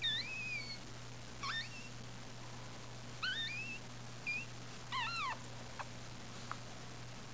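Newborn puppy squeaking in about five short, high cries, mostly rising in pitch, as the runt struggles to stay latched on to its mother's teat.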